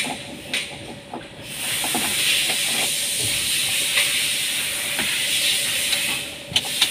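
A steady hiss, with small clicks as a new ignition key cylinder is fitted into the steering-column switch housing and its key handled. Two sharp clicks come near the end.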